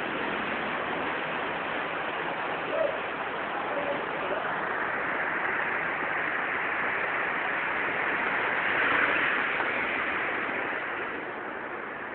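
Heavy rain falling on a road, a steady hiss that swells about nine seconds in and then eases.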